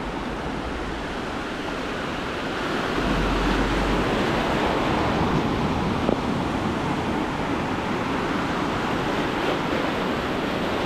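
Ocean surf breaking and washing in through the shallows, a steady rush of water that grows a little louder about two and a half seconds in.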